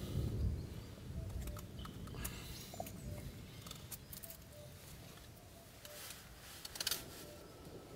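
Mora 510 knife carving a wooden spoon blank: a few short scraping cuts through the wood, spaced irregularly, with a low rumble in the first second or so.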